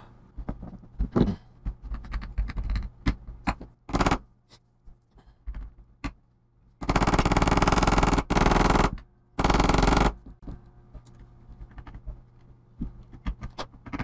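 Scattered light clicks and scrapes of a hand tool on the laptop's plastic, then three loud rasping strokes about seven to ten seconds in, as a hardened super glue and baking soda resin around the hinge mount is filed and scraped back so the hinge can close.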